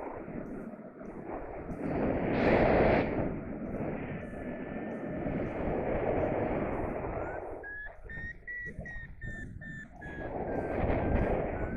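Wind rushing over the microphone in flight, swelling and easing. About two-thirds of the way in, a paragliding variometer starts beeping in a quick run of short pulses.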